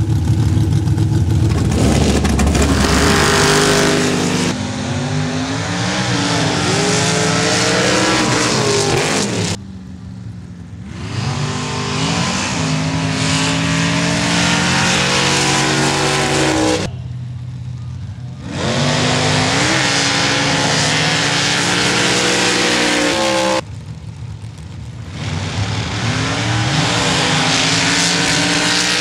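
Off-road race vehicle engines revving hard under acceleration, their pitch climbing and dropping. Four short clips are cut together, each ending abruptly.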